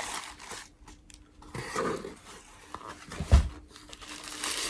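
Rustling and handling noise of a leather knife sheath and its packaging being turned over in the hands, with one soft thump a little over three seconds in.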